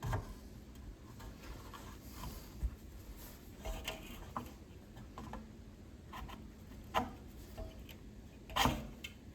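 Scattered light clicks, taps and knocks of hands handling tools and parts on a fan-coil blower assembly, irregular, with the loudest knock near the end.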